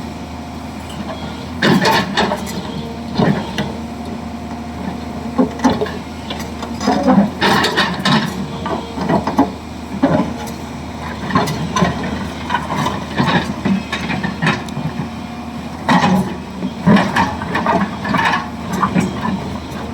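Hyundai 215 excavator's diesel engine running steadily while it loads a truck, with repeated irregular clatters and knocks of loose material dropping into the steel truck bed every few seconds.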